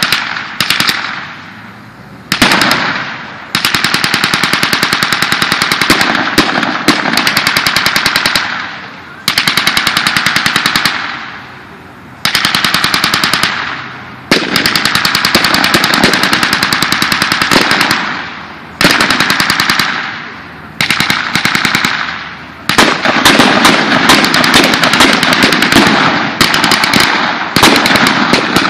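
Automatic weapons firing blanks in long bursts of one to three seconds with short pauses between. Near the end the fire becomes unbroken for several seconds.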